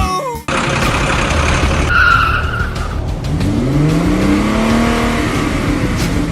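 Vehicle engine sound with a brief tyre squeal about two seconds in, then an engine tone that rises in pitch and eases back down.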